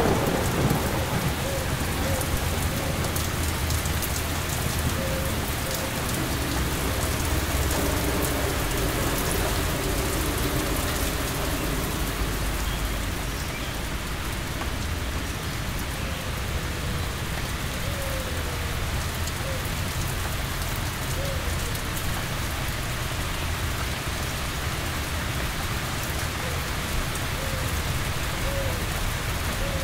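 Steady heavy rain falling, with the low rumble of a thunderclap dying away at the start.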